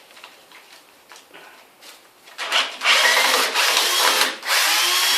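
Cordless drill-driver running in two short bursts, about three seconds in and again just after four seconds, backing out the screws of a rusted bathroom door hinge.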